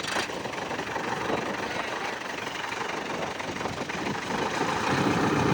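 Ford 555D backhoe's diesel engine running steadily, getting louder about four seconds in.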